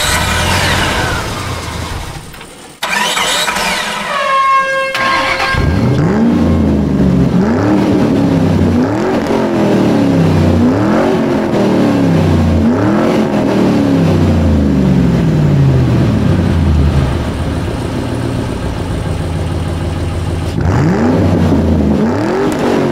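An engine revving up and falling back, again and again about every two seconds. Before it, in the first five seconds, come a few falling whistling sweeps.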